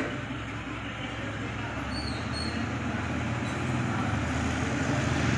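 A motor vehicle engine runs steadily with a low hum and grows louder through the second half, as a motorcycle rides up close.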